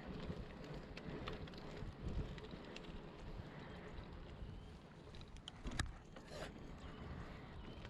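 Wind buffeting the microphone over the faint rolling noise of a rigid 24-inch kids' mountain bike being ridden, with a few light clicks and rattles about five to six seconds in.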